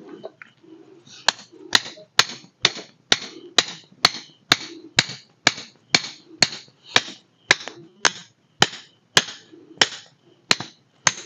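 Knife cutting food on a board in steady strokes, about two a second, each a sharp knock of the blade through to the board. The strokes start about a second in.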